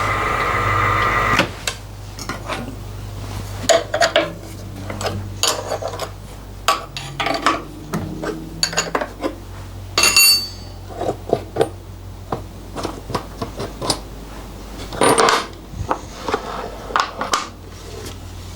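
A milling machine running with a steady hum that stops about a second and a half in. Then come irregular metal clinks, knocks and clanks of tools and parts being handled as the workpiece is taken off the machine, with a brighter ringing clank about ten seconds in.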